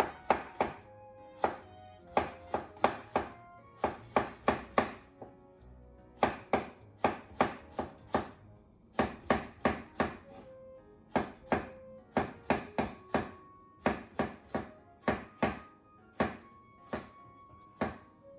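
Chef's knife slicing a cucumber thinly on a wooden cutting board: runs of sharp knocks as the blade strikes the board, about three a second, with short pauses between runs. Soft background music underneath.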